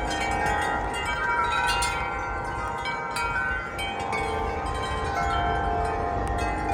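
Tuned metal wind chime set up in a gust of wind, several tubes ringing at once in overlapping, sustained notes, with a low wind rumble underneath.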